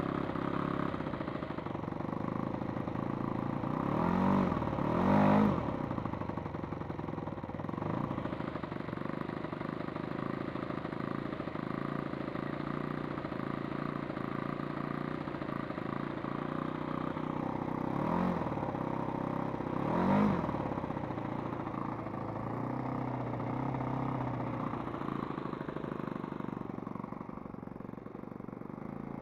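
Model aircraft's internal-combustion engine running on the ground and driving its propeller, with short bursts of throttle a few seconds in and again past the middle, then settling back to a steady run.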